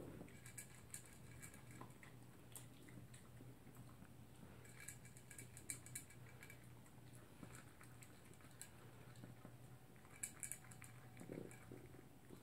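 Toy poodle eating from a bowl: faint crunching and scattered clicks of food and muzzle against the bowl, coming in small clusters.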